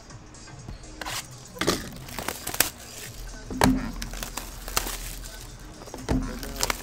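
Plastic shrink wrap crinkling and tearing as it is pulled off trading-card boxes, a run of irregular sharp crackles with a few louder knocks from the boxes being handled.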